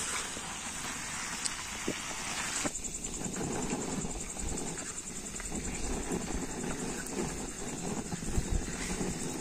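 Night forest ambience: a steady high chirring of insects, joined from about three seconds in by a low rumbling noise.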